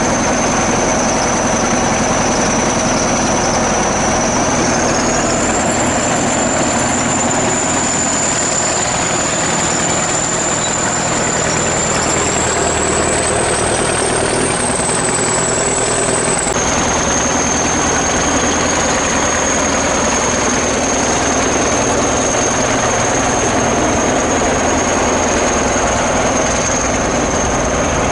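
ChTZ T-170 bulldozer's diesel engine running steadily, with a high whine over it that rises in pitch twice and drops suddenly about sixteen seconds in.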